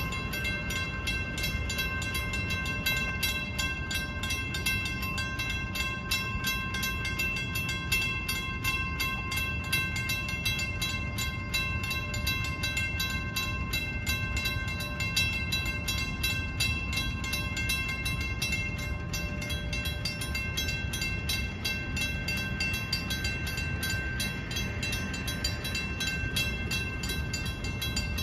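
Railroad crossing warning bells ringing in a fast, even repetition, over a steady low rumble.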